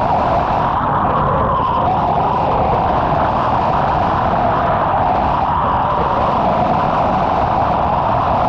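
CavitCleaner cavitation cleaning gun running underwater, its jet blasting barnacles and growth off a boat hull: a loud, steady, unbroken rushing noise heard through water.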